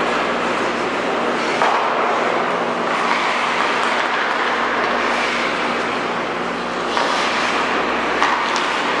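Steady rushing hum of an indoor ice hockey arena during play, with a short sharp knock about eight seconds in.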